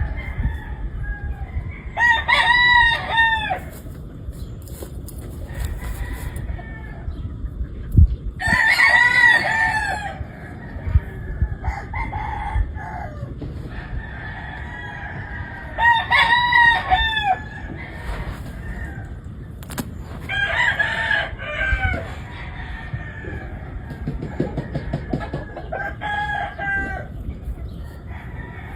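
Gamefowl roosters crowing: five long crows spread several seconds apart, with a steady low rumble underneath.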